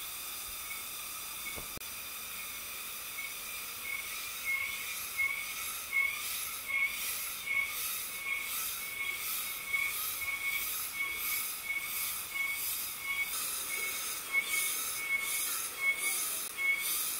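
Cicadas buzzing in a steady, high chorus that, about four seconds in, starts to pulse at about three beats every two seconds.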